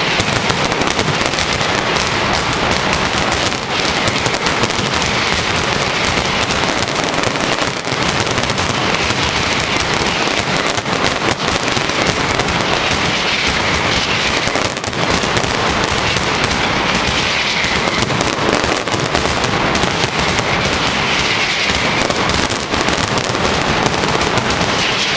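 Mascletà: a dense, unbroken barrage of ground firecrackers (masclets) going off in rapid succession, loud and continuous with no gaps.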